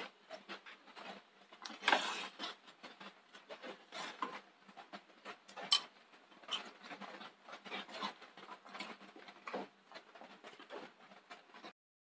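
Wooden spatula stirring and scraping thick chicken curry in a non-stick pan: faint, irregular scrapes and soft wet clicks, with one sharp click about six seconds in.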